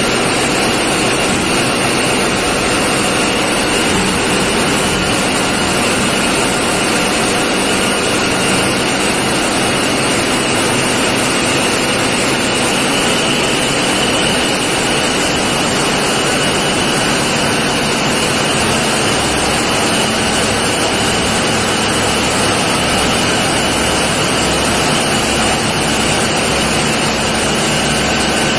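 Tugboat engine-room machinery running: a loud, steady mechanical din with a constant high whine, joined by a low throb in the last few seconds.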